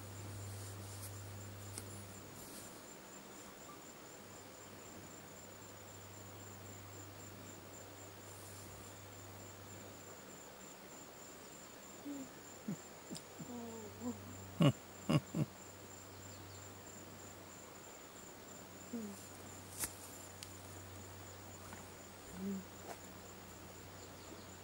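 Bush ambience: a steady, high-pitched, finely pulsing insect trill over a low steady hum. A cluster of short chirps and sharp clicks comes about halfway through, and a few more follow later.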